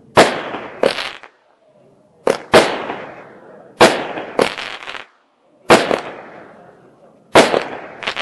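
Aerial firework shells bursting: about nine sharp bangs, some in quick pairs, each trailing off in an echoing rumble.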